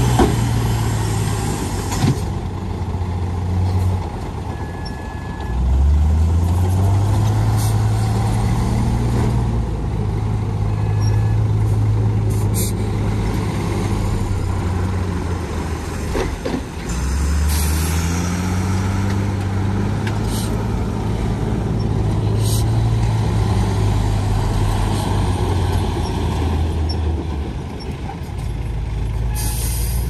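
Heavy diesel earthmoving engines running under load, revving up about five seconds in and again just past the middle, with several short hisses.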